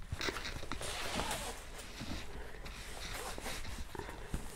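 Quiet rustling and scraping of a diamond painting canvas's plastic-covered sheet as it is lifted and a stiff board is slid underneath it, with a few soft ticks of handling.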